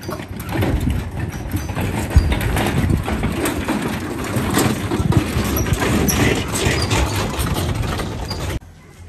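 Steady rumbling and rattling of wheels rolling over a rough dirt lane, with many small knocks, cutting off suddenly near the end.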